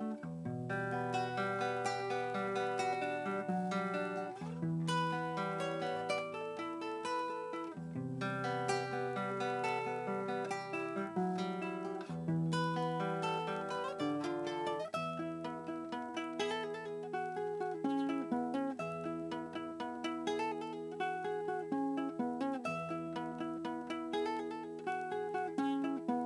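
Solo guitar playing an instrumental piece: quick runs of plucked notes over low bass notes that change every few seconds.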